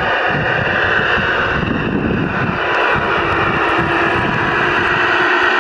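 Class 66 diesel engine sound from a Gauge 1 model locomotive's onboard sound unit, running under power as the loco pulls away. A steady, droning engine note.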